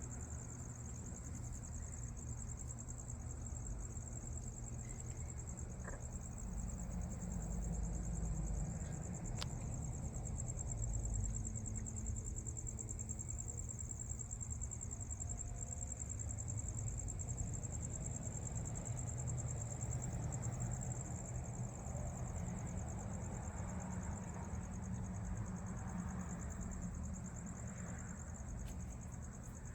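Night insects, crickets, trilling steadily in a continuous high-pitched chorus, with a low rumble underneath.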